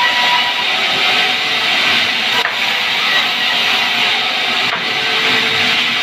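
Sawmill band saw running and cutting lengthwise through a log: a loud, steady hiss of the blade in the wood.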